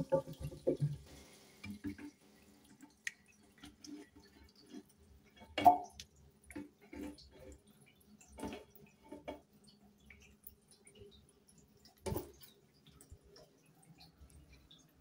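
Faint, irregular drips and small knocks in a tiled toilet: water dripping in the bowl as toilet cleaner is squeezed around the rim from a plastic bottle. A few louder knocks come about six and twelve seconds in.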